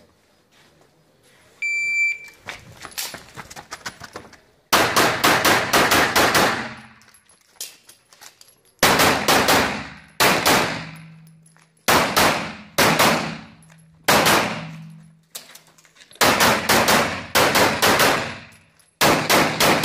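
An electronic shot-timer start beep about two seconds in, then a semi-automatic pistol fired in quick strings of two to eight shots, about two dozen in all, with short pauses between strings.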